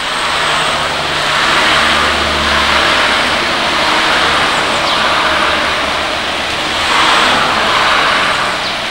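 Cars driving past on a rain-soaked road: tyres hissing on the wet asphalt with a low engine hum, over the steady sound of pouring rain.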